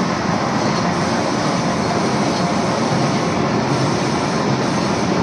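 Automatic rotary slotter machine running steadily, an even mechanical noise with no breaks.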